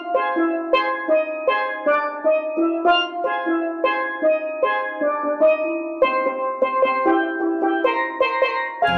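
Solo steel pan built by Mannette, struck with a pair of mallets, playing an evenly paced repeating Montuno chord pattern in F minor. This is the variant with A flat and C struck together as a block and the step down played as the broken part.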